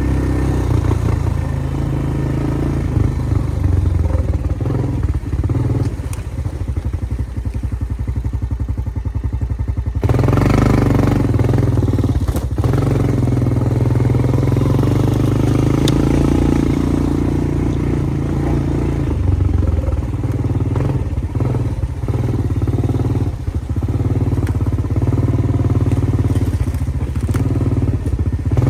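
Engine of a small vehicle, such as an ATV, running and driving along, getting louder and fuller about ten seconds in.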